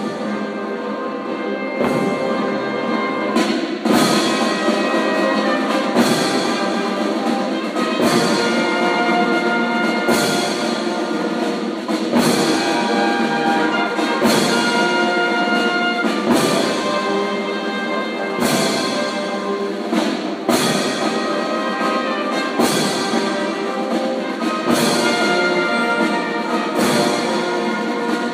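Marching band playing live: brass instruments hold sustained chords over a bass drum beating about every two seconds, with side drum.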